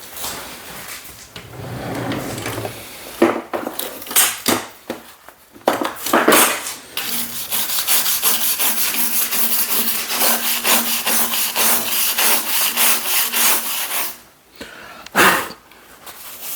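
Rapid rhythmic rubbing and scrubbing over the steel tabletop, at the iron grinding filings that the magnet holds in place.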